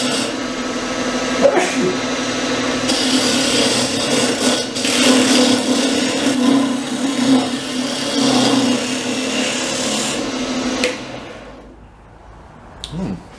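Wood lathe running with a turning tool cutting into a spinning log, taking off bark and soft outer wood: a steady hum with scraping cutting noise that swells and fades as the tool bites. It stops about eleven seconds in.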